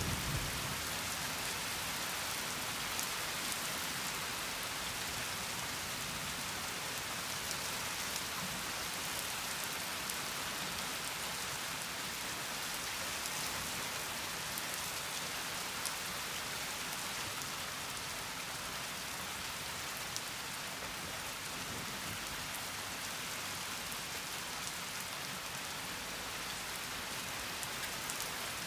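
Steady rain falling through a thunderstorm, with scattered sharp ticks of drops striking close by.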